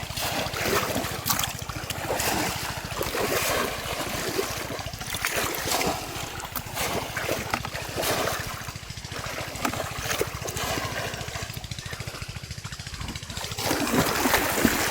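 Pond water splashing and sloshing irregularly as it is stirred in the shallows, louder near the end.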